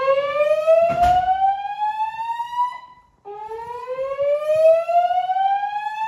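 Fire alarm speakers sounding a slow whoop evacuation tone through the Notifier NFS2-3030 voice system's Gentex speaker strobes: a loud tone that rises slowly in pitch for several seconds, holds briefly, breaks off, then starts again low, twice. A single sharp thump about a second in.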